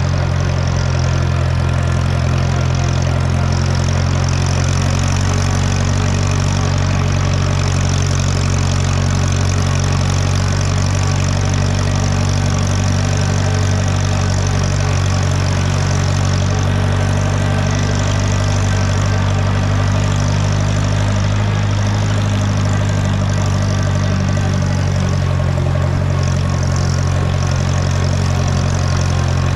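Engine of an Allis-Chalmers Model D road grader running steadily at an even speed.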